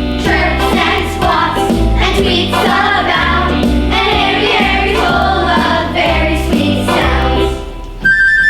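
A choir singing an upbeat song over instrumental accompaniment with a stepping bass line. The music stops near the end, and a single high held tone follows.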